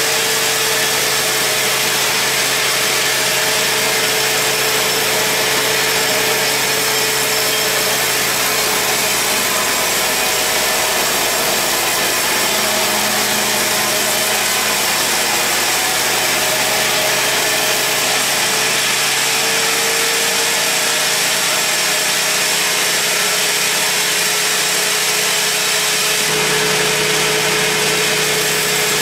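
Large band sawmill running steadily with a constant whine, its blade sawing a big mahogany log lengthwise into planks.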